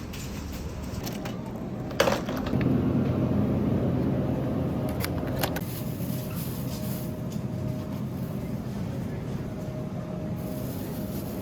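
A sharp click about two seconds in, then a steady low mechanical hum.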